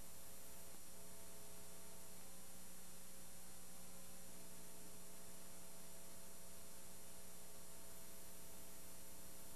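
Steady electrical hum with an even hiss, and nothing else: the noise floor of an old film transfer with no soundtrack.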